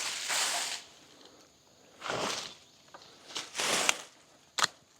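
Dried-out tomato plants rustling as they are handled, in three brushing swells, with a sharp click near the end.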